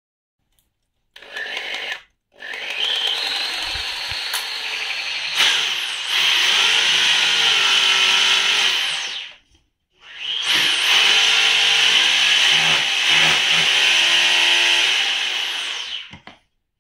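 A big power drill running: a short burst about a second in, then a long run of about seven seconds, a brief stop, and another run of about six seconds.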